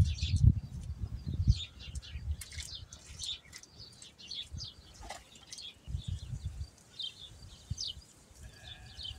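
Small birds chirping in short, repeated calls throughout, over low rumbling gusts that are strongest in the first second and a half and again around six seconds in.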